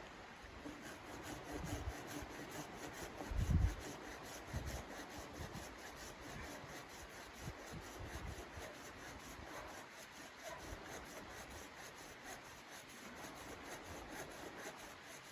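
Rhythmic scraping or rubbing strokes, about four a second, with a few dull low thumps, the heaviest about three and a half seconds in.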